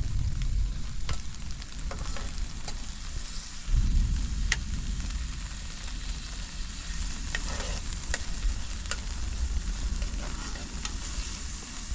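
Sizzling and crackling with a sharp pop now and then, over a low rumble that swells again about four seconds in.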